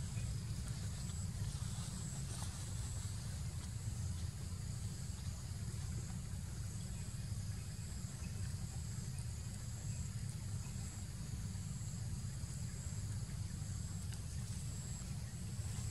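Steady outdoor background: a low rumble, with a faint, high, unbroken insect buzz above it.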